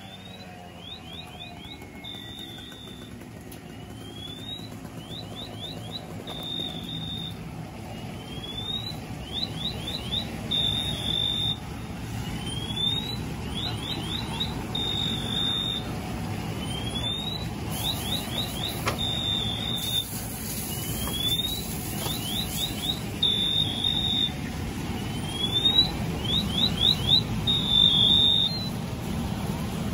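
Car alarm sounding: a high-pitched cycle about every four seconds of a rising sweep, a quick run of short rising chirps and a steady tone, stopping near the end. Underneath is a steady rushing noise that grows louder.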